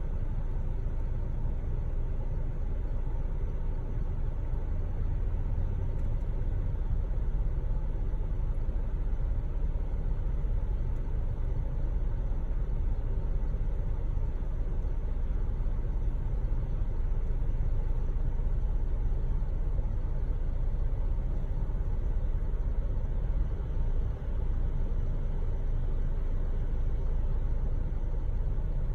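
Honda Freed GB5 idling with the air conditioning on: a steady low rumble, with the squealing 'kyuru-kyuru' noise from the air-conditioning blower. The noise is a fault that was dealt with by replacing the blower motor and fan as an assembly.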